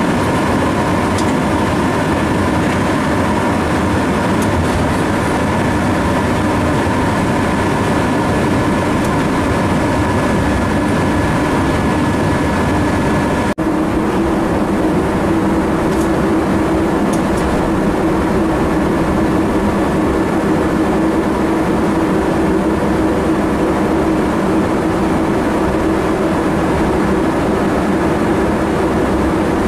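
Cab noise of a 1948 Swedish class Hg electric locomotive under way: its noisy cooling fans run with a loud steady whine over the rumble of the ride. After a brief break about halfway through, the whine settles to a lower tone.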